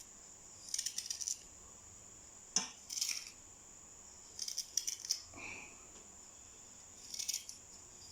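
Kitchen knife cutting through fresh ginger root: short crisp crunching bursts, about five in all, a second or two apart, with one sharper click about a third of the way in.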